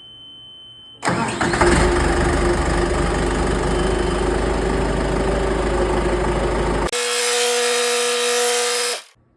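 A John Deere 5525 tractor's four-cylinder diesel engine is cranked and starts about a second in, after a short steady beep, then runs freshly fitted with a new fan belt. About seven seconds in the sound switches abruptly to a different steady noise with a few held tones, which cuts off near the end.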